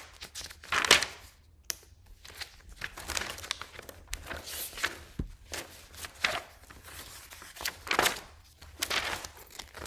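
Paper handouts rustling as sheets are handled and shuffled, in a series of short swishes, with a soft knock about five seconds in.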